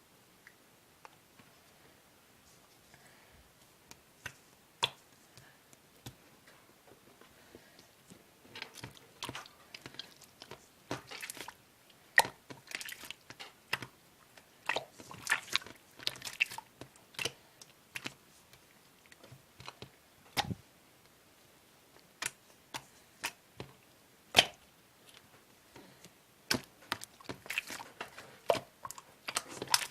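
Pink slime being handled by hand, giving irregular sticky clicks and pops. They are sparse at first and come thick and fast from about eight seconds in.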